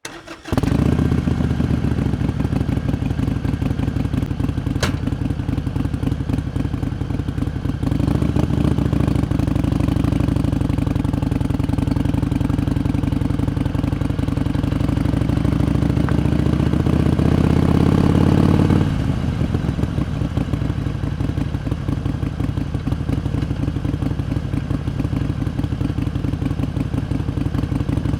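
Harley-Davidson Iron 883's air-cooled V-twin engine running, coming in abruptly at the start. About a third of the way in it gets louder, its pitch creeping up under throttle, then the throttle closes and it drops back to a lower, steady run. A single sharp click a few seconds in.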